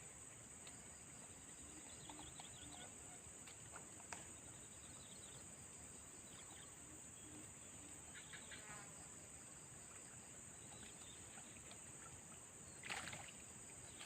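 Near silence: faint outdoor ambience with a steady high insect drone and scattered short insect chirps and trills. There is a brief rustling noise near the end.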